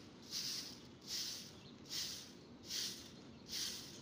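Soft grass broom sweeping loose grit across a rough concrete slab, about five brisk strokes at a little under one per second, each a short scratchy swish.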